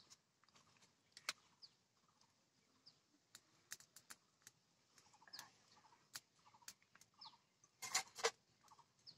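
Quiet outdoor sound with scattered faint clicks and knocks, a louder cluster of knocks about eight seconds in, and faint clucking and chirping bird calls.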